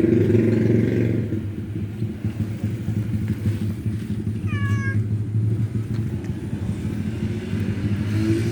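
A cat meows once, briefly, about four and a half seconds in, over a steady low motor rumble.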